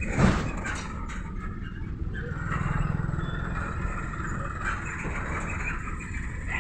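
Vehicle noise inside the cab of a broken-down Tata mini-truck being towed behind a tractor: a steady low rumble from the tractor's diesel engine and the rolling vehicle, with one sharp knock about a quarter second in.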